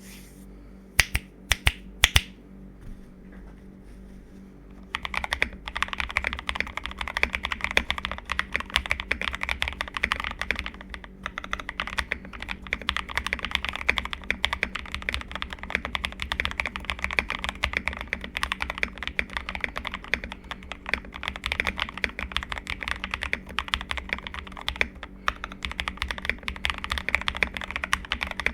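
Mechanical keyboard with lubed KTT Strawberry linear switches and XDA keycaps being typed on: a few single sharp key clicks, then from about five seconds in steady fast typing.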